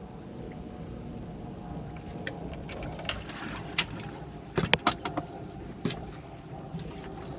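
Clattering knocks and metallic rattles from handling gear in a fishing boat, a few sharp ones about halfway through, over a steady low rumble.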